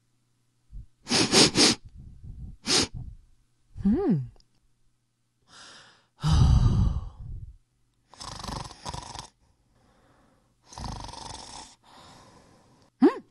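A voice making a string of loud breathy puffs and rasps, about seven of them, with one short squeaky cry that rises and falls about four seconds in.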